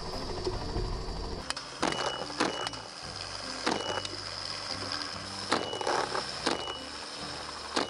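Helicopter engine and rotor noise running steadily, broken by a string of irregularly spaced sharp cracks, the loudest about five and a half seconds in: shots fired from the helicopter.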